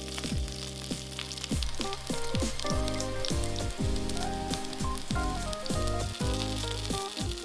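Halved, scored eggplants sizzling in plenty of oil in a frying pan, the flesh side now down after being turned, under background music.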